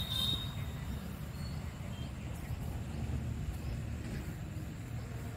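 Outdoor background noise: a steady low rumble, with a brief high-pitched chirp right at the start.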